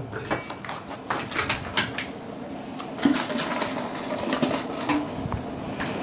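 Vacuum-sealed plastic packs of fish being handled and laid into a perforated stainless-steel steamer tray: irregular plastic rustling and light clicks and taps against the metal.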